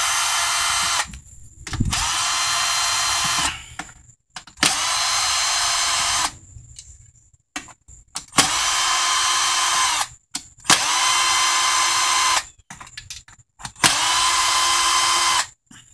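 Cordless drill/driver backing out the bolts of a water softener control valve head, one bolt after another. It runs in short bursts of about a second and a half, six in all, each spinning up quickly and then holding a steady pitch, with short pauses between.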